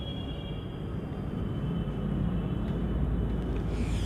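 A low rumble that slowly grows louder.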